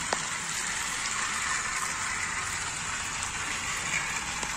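Battery-powered Thomas & Friends toy trains running on plastic track: the steady whirring hiss of their small motors and gears, with a brief tick just after the start.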